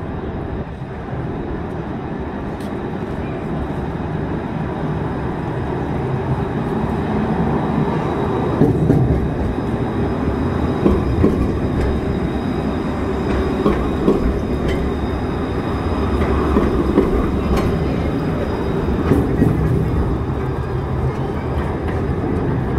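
Alstom Citadis 403 low-floor tram running on street track. The rumble of wheels on rail builds as it approaches and is loudest for about twelve seconds while it passes close by, with a few sharp clicks from the wheels on the rails.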